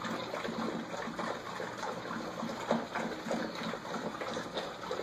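A litter of puppies eating together from one dish: faint, irregular lapping and chewing over a low steady hiss.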